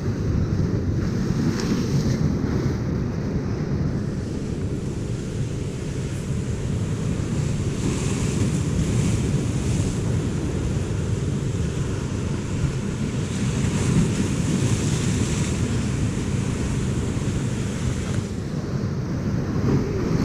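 Wind buffeting the microphone over a big sea surging and washing on rocks, the surf hiss swelling twice, about 8 and 14 seconds in.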